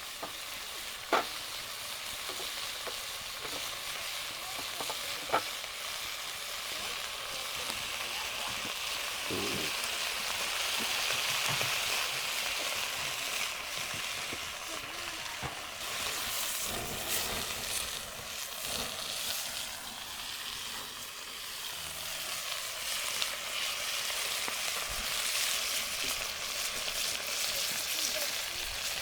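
Trout frying in butter in a pan over a campfire: a steady sizzle, with a couple of sharp ticks in the first few seconds.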